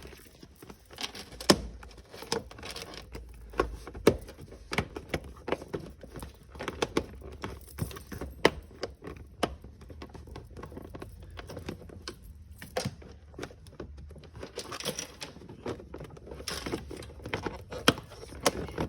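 Irregular clicks, taps and knocks of plastic car interior trim being handled and pressed back into place.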